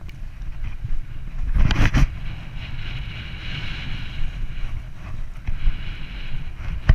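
Wind rumbling on an action camera's microphone during a fast run down a groomed snow slope, with the hiss and scrape of edges on packed snow. A brief louder scrape comes about two seconds in, and a sharp knock near the end.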